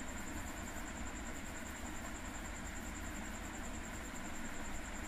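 Steady low background hum with a faint, thin high-pitched whine, under the light scratching of a pencil writing on a workbook page.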